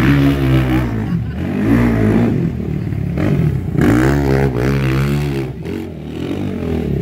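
Sport ATV engine revving up and falling back in repeated swells as the throttle is worked on and off. The longest swell comes about four to five and a half seconds in.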